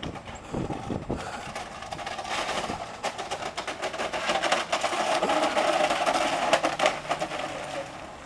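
An old Macintosh computer dragged along the ground on a cable behind a truck, scraping and rattling with many rapid knocks. The noise builds up, is loudest in the middle to late part, and dies away near the end.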